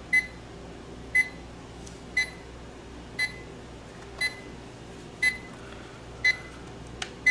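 Digital alarm clock's alarm going off in its beep tone: one short, high beep about once a second, eight in all, the alarm triggered at its set time. A sharp click sounds near the end.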